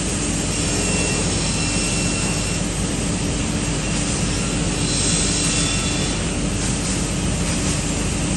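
Multi-blade wood block cutting saw running, a loud steady machine drone with a faint high whine in the first few seconds.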